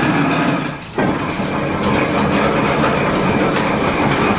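1897 metal planer running on line-shaft power, its table travelling under the tool head with a steady clattering machine noise, which drops briefly about a second in.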